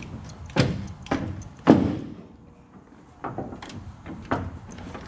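About six hard metallic knocks of a hammer on the car's sheet-metal body, each ringing briefly, with a pause in the middle: a small dent in the bodywork being knocked out. The third blow is the loudest.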